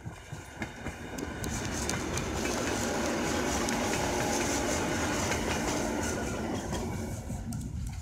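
EN57ALc electric multiple unit passing close at speed, its wheels clattering on the rails. The sound builds, is loudest about midway and fades as the train moves away near the end.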